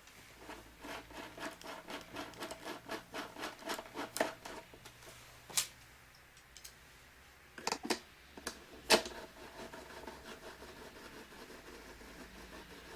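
Screwdriver driving a long screw to fix a door lock's mounting plate: a quick, even run of small clicks for about five seconds, then a few separate knocks.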